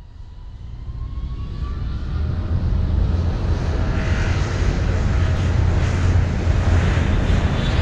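Jet aircraft engine noise fading in and building over the first few seconds, then holding steady: a heavy low rumble under a broad rush, with a faint rising whine early on.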